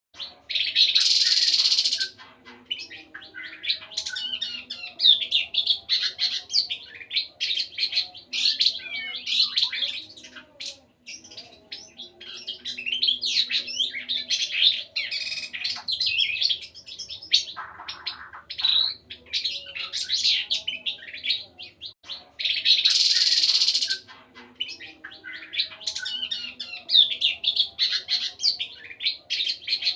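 Songbird singing a fast, varied run of chirps and warbles, high-pitched and almost without pause. Two harsh, hissing rattles break in, one near the start and one about three quarters of the way through.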